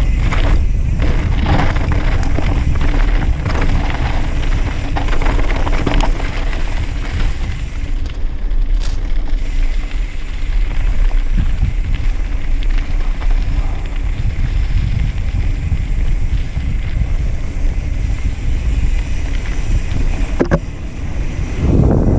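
Steady wind rush on the microphone and tyres rolling over a dirt singletrack as a YT Industries Capra AL Comp enduro mountain bike descends at speed, with a sharp clack from the bike over a bump near the end.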